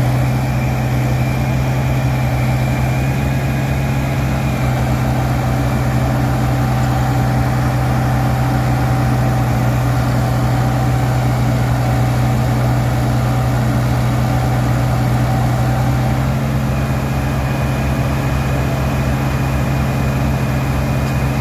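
A steady, loud, low machine hum, engine-like, with faint thin whining tones above it; it holds constant throughout.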